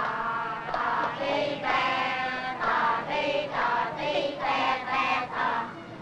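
A group of children singing a song together in short phrases.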